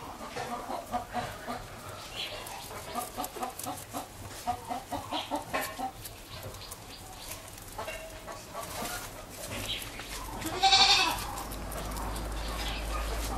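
Farmyard animal calls: a run of short, rapidly repeated calls through the first six seconds, then one loud call about eleven seconds in.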